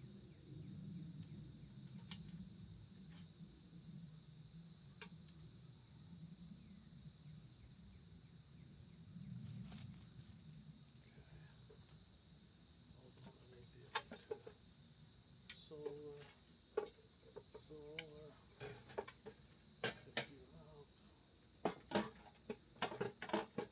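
Steady chorus of insects, crickets or katydids, with a fast pulsing high buzz throughout. In the second half, a run of sharp clicks and knocks, louder than the chorus, cluster toward the end.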